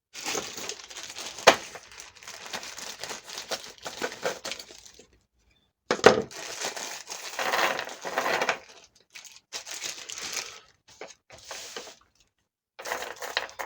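Packaging crinkling as it is handled, in several bursts separated by short pauses, with a sharp knock about one and a half seconds in and another about six seconds in.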